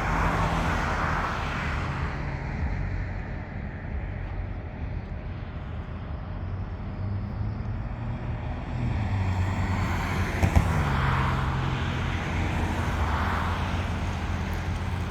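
Heavy engine running steadily, its pitch stepping up and down and dropping in a short glide partway through, with a single sharp knock about ten and a half seconds in.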